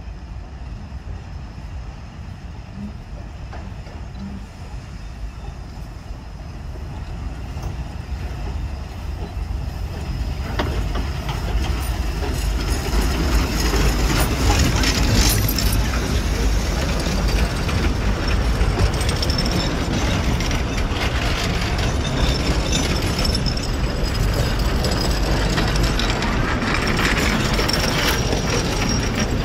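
Narrow-gauge steam train approaching, getting steadily louder over the first dozen seconds, then the locomotive and its coaches and open wagons rolling close past with a continuous low rumble and the clicking and rattling of wheels on the track.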